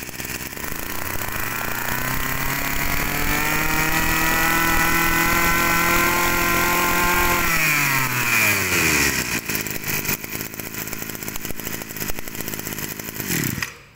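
Kioritz two-stroke brush-cutter engine running on test: it revs up about a second in, holds at high throttle for several seconds, drops back to idle, then is switched off just before the end. The seller calls its running very strong.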